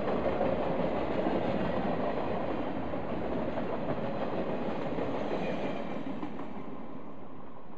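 Norfolk Southern RoadRailer train of Triple Crown trailers on rail bogies rolling past: steady wheel-on-rail rolling noise that fades near the end as the last trailers go by.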